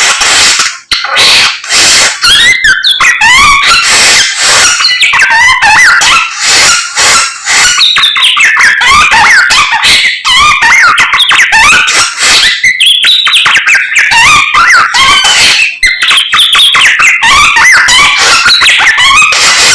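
A caged songbird called a samyong singing loudly and without pause: a fast, varied stream of sharp chirps, clicks and short whistled glides.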